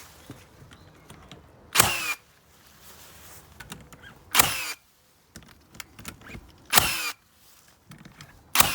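Hikoki cordless nail gun firing four times, about two and a half seconds apart, each shot a sharp bang with a short falling whine after it, with small handling clicks between shots.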